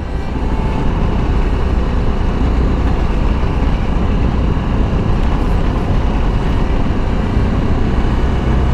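BMW G310GS's single-cylinder engine running steadily on the move, mixed with wind and road noise as the tyres roll over cobblestones.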